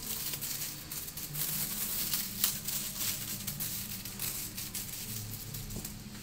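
Aluminium foil crinkling and rustling as it is folded and pressed tightly around a parcel by hand.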